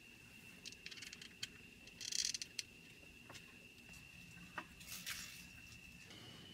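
Light handling clicks and scrapes as wooden chair parts and plastic clamps are fitted together, with a short scratchy scrape about two seconds in and another near five seconds, over a faint steady high whine.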